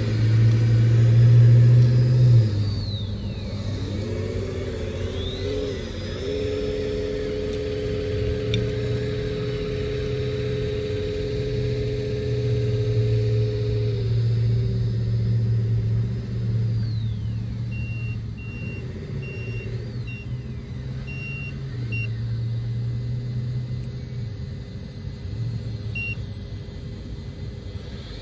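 Simulated diesel engine sound from the RC 8x8 dump truck's Lesu sound-kit speaker, a steady low drone that revs up, holds and settles back as the truck is driven up the slope. A thin high whine rises and falls with the throttle, and short high beeps sound a few times in the second half.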